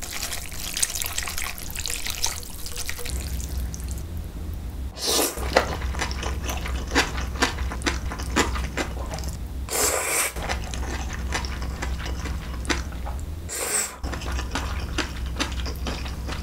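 Chopsticks stirring cold milmyeon noodles in icy broth in a glass bowl, a wet swishing, followed by close-up eating: sticky chewing clicks and two loud noodle slurps, about ten and fourteen seconds in.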